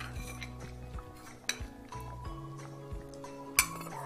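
A spoon clinking against a bowl a few times as fish is scooped into a cooking pot, the sharpest clink near the end, over steady background music.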